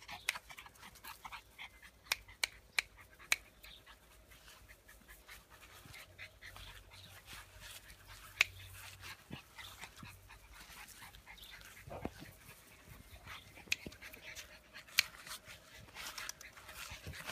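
Dogs at play, with panting and a scatter of short, sharp clicks.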